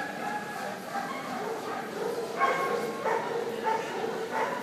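Basenjis yodeling and whining: a run of drawn-out pitched calls, one after another.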